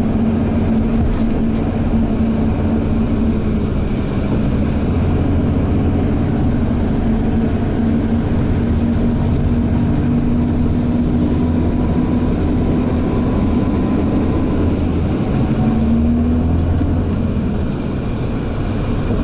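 Steady drone of a coach bus's engine and road noise heard from inside the cabin, the engine note shifting slightly with speed and rising briefly about sixteen seconds in.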